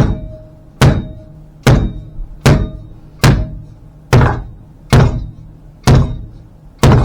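Nine heavy thunks a little under a second apart, each with a short metallic ring: a steel side pipe being knocked against a wooden block to jar loose a muffler insert that is stuck tight inside it.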